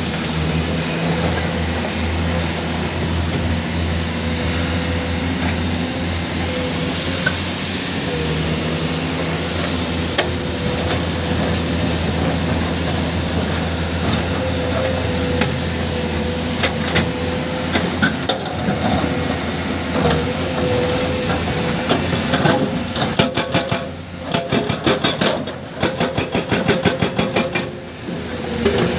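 Excavator diesel engine running steadily. In the last several seconds a hydraulic breaker hammer strikes rock in a rapid, even stream of blows.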